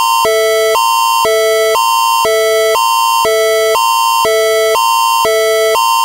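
Canadian Alerting Attention Signal (the Alert Ready tone of the National Public Alerting System). It is a loud electronic tone that switches every half second between a high pair of notes and a lower two-note chord, repeating steadily.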